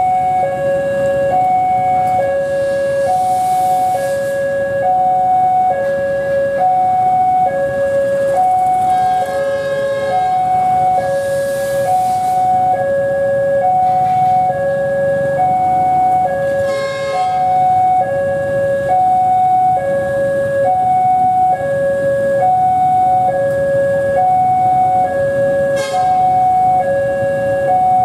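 Railway level-crossing warning alarm sounding steadily, an electronic two-tone signal switching back and forth between a lower and a higher tone, each held for well under a second. It sounds while the barriers are down for an approaching train.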